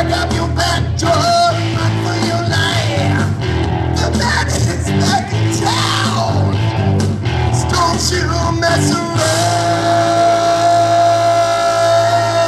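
Karaoke singing: one voice singing loudly into a microphone over a rock backing track, ending on one long held note from about nine seconds in.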